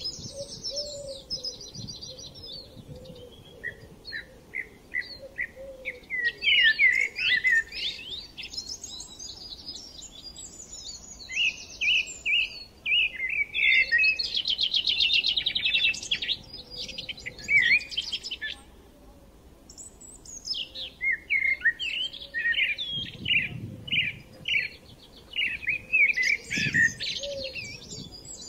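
Small birds chirping and twittering in repeated bursts of quick high notes and trills, with a short lull about two-thirds through.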